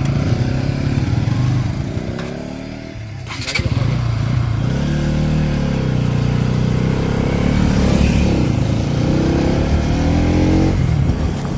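Motorcycle engine pulling away and accelerating, its pitch rising. It eases off about three seconds in, a short knock is heard, and then it climbs again.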